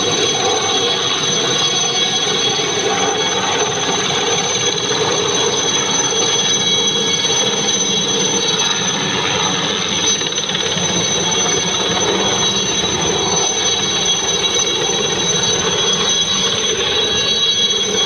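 Indian Army light helicopter hovering low and descending over a grass field: a loud, steady turbine whine over dense rotor noise, with no letup.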